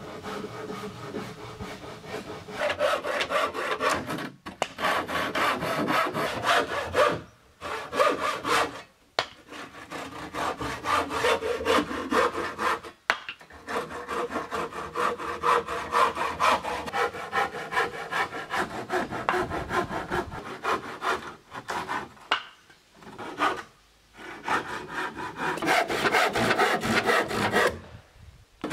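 Hand saw cutting wood in quick back-and-forth strokes, stopping briefly several times.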